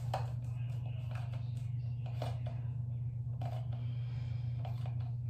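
Plastic toiletry bottles handled by hand, a few light clicks and knocks spread through, over a steady low hum.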